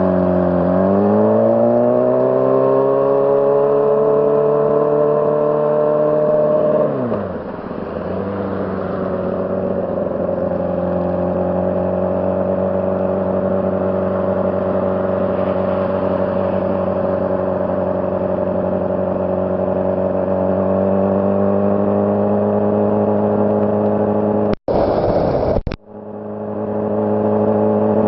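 Honda CBR600RR's inline-four engine running: the revs climb over the first few seconds, fall away steeply about seven seconds in, then hold steady. Near the end the sound cuts in and out abruptly, with a short patch of rushing noise.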